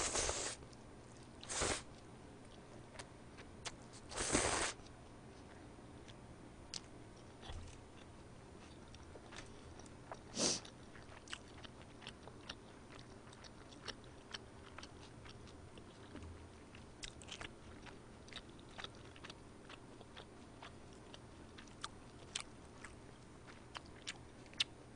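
A person eating buckwheat noodles close to a microphone. There are a few short, loud eating noises in the first five seconds and another about ten seconds in, then soft, scattered chewing clicks.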